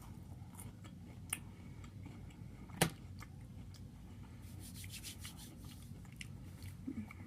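Soft handling noises over a low steady hum: a sharp click a little over a second in, a louder one near the three-second mark, and a brief crackly rustle about halfway through.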